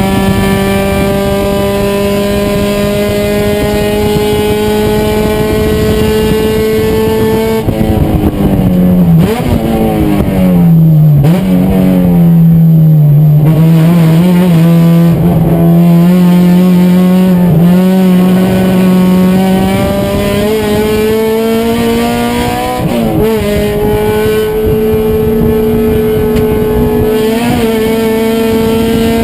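Race car engine running hard at high revs and climbing slowly. About eight seconds in the revs drop with some stepping and wavering as the car slows for a corner, then build again steadily through the second half.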